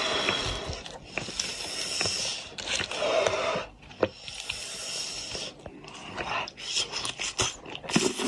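A person eating spicy goat's head: repeated sucking and slurping noises, each about a second long, then quick smacking clicks of chewing near the end.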